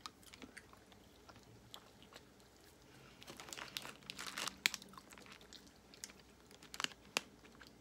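Jelly beans being chewed: soft, irregular crunching and mouth clicks, with a sharper click about four and a half seconds in and two more near the end.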